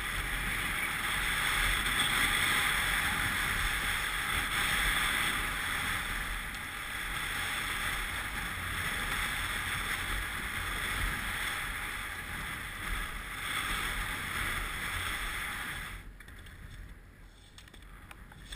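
Skis hissing and scraping over packed snow at speed, mixed with wind rushing over the microphone. The noise drops away suddenly near the end.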